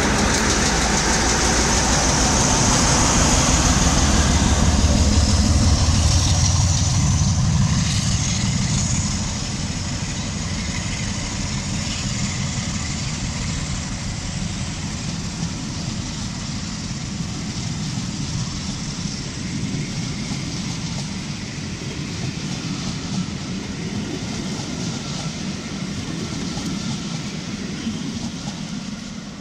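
A Class 47 diesel locomotive's Sulzer twelve-cylinder engine runs loud as the locomotive passes, strongest for about the first nine seconds. Then comes a lower steady rumble of passenger coaches rolling by on the rails, which fades near the end.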